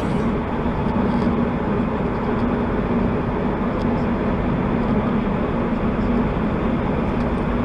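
Steady road and engine noise of a moving car, heard from inside the cabin, with a constant low hum.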